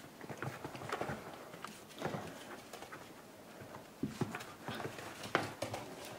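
Dogs' claws clicking and paws scuffling on a wooden floor and rug as a Parson Russell terrier puppy and an older dog play, a run of irregular taps and knocks.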